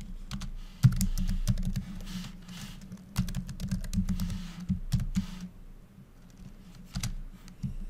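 Typing on a computer keyboard: a quick run of keystrokes in the first half, then a few scattered key presses toward the end.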